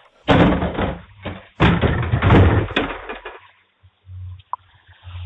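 Two loud bursts of banging and rattling, the first about a second long and the second nearly two seconds, then a few faint knocks, heard through a doorbell camera's narrow-sounding microphone.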